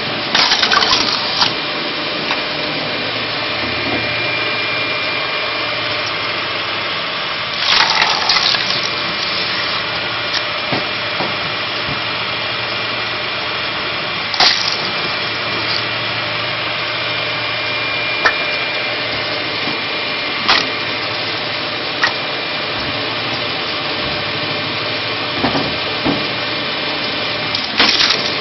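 Homemade screw (cone) log splitter running steadily: its electric motor and spinning threaded steel cone make a constant hum with a thin steady whine. A log is pressed onto the cone and split, with about a second of cracking and tearing wood near the start and again about eight seconds in, then single sharp cracks every few seconds as the pieces break apart.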